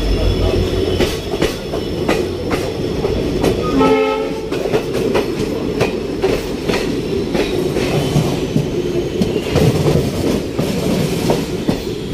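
ICF sleeper coach running at speed, heard from its open doorway: a steady rumble with the wheels clicking over rail joints. A short horn blast sounds about four seconds in.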